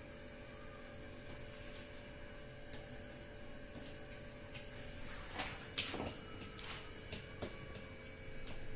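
Faint handling sounds of a potato ball being rolled and pressed in bread crumbs in a small steel bowl, with a few light clicks and taps against the bowl a little past halfway, over a steady faint hum.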